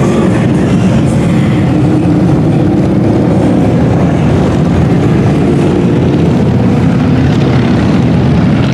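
Motorcycle engines rumbling as several bikes ride past, a loud, steady, deep exhaust sound.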